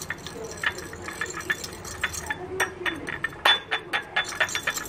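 Metal fork clinking quickly and unevenly against a ceramic bowl while stirring cornflour into water, with a sharper clink about three and a half seconds in.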